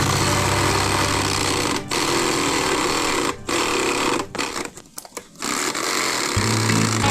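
Homemade electric jigsaw running with a fast, buzzing reciprocating clatter. It cuts out briefly about two seconds in and again a second and a half later, then goes quiet for about a second around the middle before starting up again.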